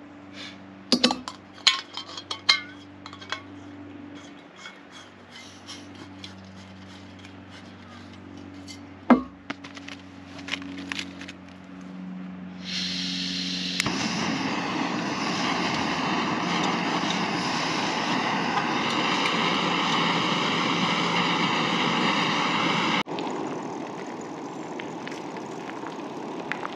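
Metal clinks of a camp stove and cookpot being handled and fitted together, then an MSR canister stove's gas hissing on and lighting about 13 s in and burning with a loud, steady hiss. Near the end it drops to a quieter steady burner hiss under the pot of boiling pasta.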